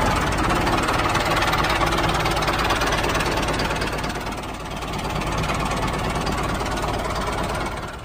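Tractor engine running steadily with a fast, even low chugging.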